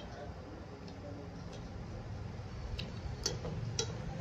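Two people eating rice and curry by hand from steel plates: scattered short clicks and smacks, with a few sharper ones near the end, over a steady low hum.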